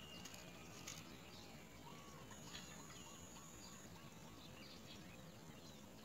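Great myna nestlings begging with faint, high, short chirps while being fed at the nest, with a couple of soft clicks in the first second.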